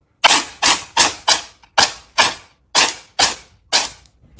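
A cat sneezing over and over, about nine sharp sneezes in quick succession, roughly two a second, each cutting in suddenly and dying away fast.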